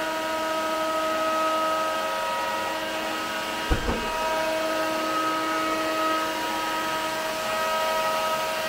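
Yeti SmartBench CNC router running steadily, its spindle whining on a few steady tones as a 90-degree V bit cuts grooves into dense water-resistant MDF, with dust extraction running alongside. A brief low thump about halfway through.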